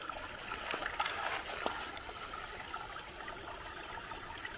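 Small stream trickling steadily, with a few light clicks about a second in.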